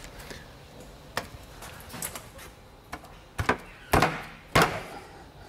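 About six sharp knocks and clunks, the loudest in the second half, from the painted hard pipe fittings being pushed into place on a wall-mounted vacuum canister and hose reel.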